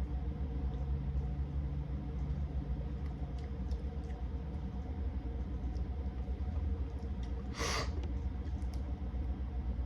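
Steady low hum of the room with faint small clicks, and one short noisy sniff about three-quarters of the way through, from a runny nose with a cold.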